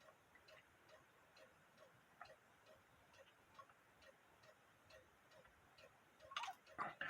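Cuckoo clock movement ticking faintly and evenly, about two ticks a second, with a few louder clicks near the end.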